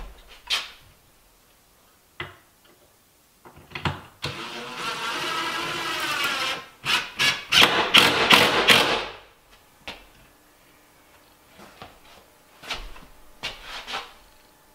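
Cordless drill driving a screw into a wooden cabinet frame: a steady motor run of about two and a half seconds with its pitch wavering under load, then several short trigger bursts as the screw is seated. Scattered light knocks from handling the wood and tool come before and after.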